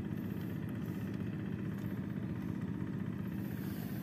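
An engine running steadily, an even drone with no change in speed.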